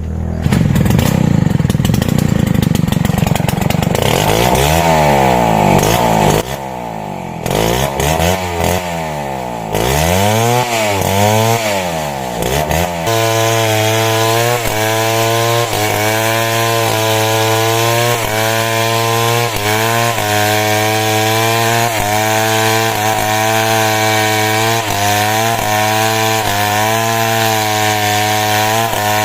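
A small petrol engine is revved up and down several times, then held at a steady high speed, working under load, for the second half.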